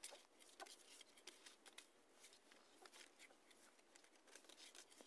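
Faint, irregular wet clicks of newborn puppies suckling at their mother's teats.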